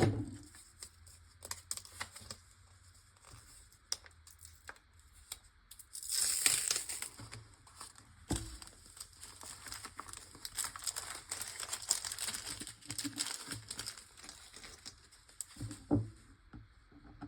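Crinkling and rustling of paper and plastic adhesive backing as tiny craft pieces are handled and pressed onto sticky dot adhesives, louder in spells, with a few light taps on the work surface.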